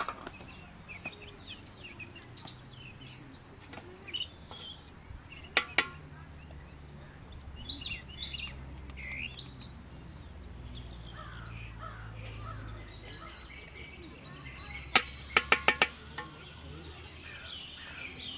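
Small birds chirping and calling over a low steady rumble. Sharp clicks cut in twice about six seconds in, and again in a quick run of five about three-quarters of the way through; these are the loudest sounds.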